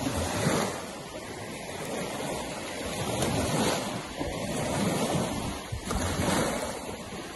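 Sea waves washing onto the shore, rising and falling in surges every second or two.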